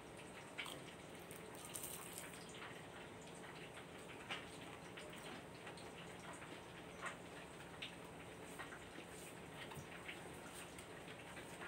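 Faint chewing of a crisp fried dynamite spring roll: scattered soft crunches and mouth clicks every second or two over low room hiss.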